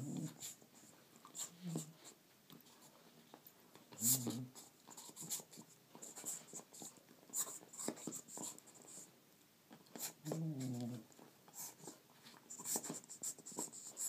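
Border Collie making short, low, weird vocal noises while chewing a rubber toy, a longer wavering one about ten seconds in, with scratchy clicks and squeaks of teeth on the rubber throughout.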